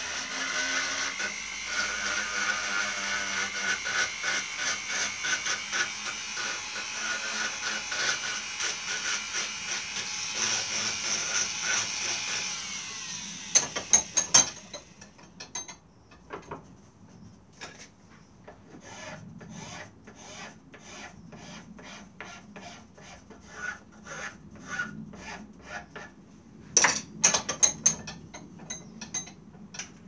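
A small corded rotary tool runs with a steady whine, grinding against the carved wooden thumbstick head, and cuts off about 13 seconds in. A few sharp knocks follow, then quick, repeated hand rubbing strokes on the wood.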